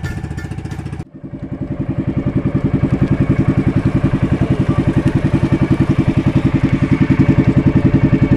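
A small engine running steadily with a fast, even pulsing beat. The sound cuts off abruptly about a second in, comes back, and grows louder over the next two seconds.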